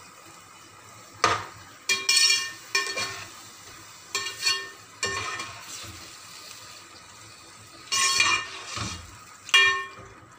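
A metal fork scraping and clinking against a metal cooking pot in irregular strokes while stirring and breaking up raw beef mince. A low frying sizzle runs underneath.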